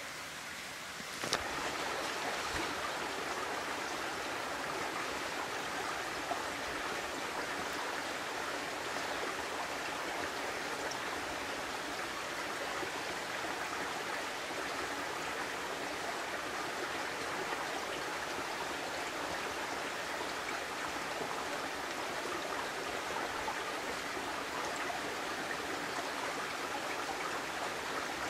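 Steady rushing of a small stream's flowing water, starting abruptly about a second in.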